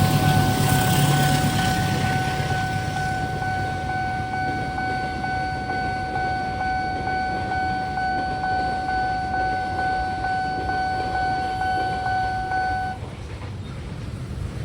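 Railway level-crossing warning alarm sounding one steady electronic tone, which cuts off suddenly about 13 seconds in. Under it, the rumble of a passing train fades over the first few seconds.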